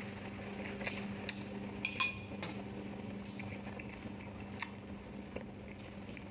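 Eating utensils clinking and tapping against a dish, with one clear ringing clink about two seconds in among scattered small clicks, over a steady low hum.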